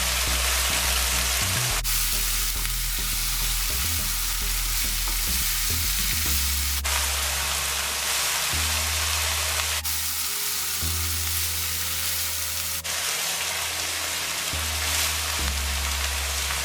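Shredded cabbage and chicken sizzling in hot oil in a wok as they are stirred, the sizzle jumping abruptly in level a few times. Low background music runs underneath.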